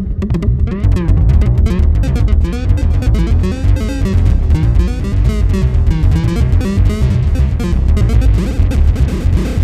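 Experimental electronic noise music played on hacked electronic hardware. A loud, dense low rumble pulses irregularly, with rapid clicks and warbling, chirping sweeps above it.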